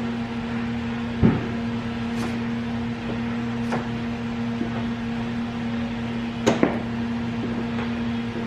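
Steady electrical hum, with two sharp knocks and a few fainter clicks on top.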